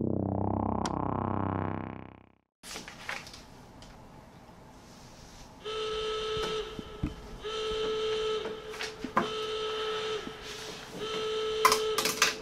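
A synthesized rising sweep sound effect plays for about two seconds, followed by quiet room sound with a few clicks. From about six seconds, an electronic tone repeats in phrases about a second long, broken by sharp taps and paper sounds.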